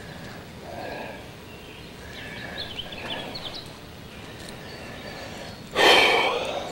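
Outdoor ambience with faint bird chirps, then a sudden loud rushing burst about six seconds in that fades over a second.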